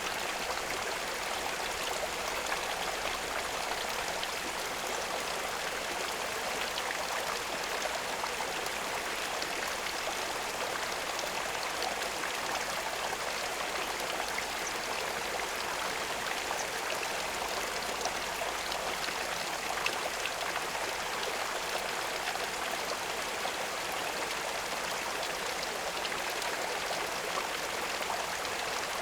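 Running water trickling steadily, with fine splashing, at a constant level throughout.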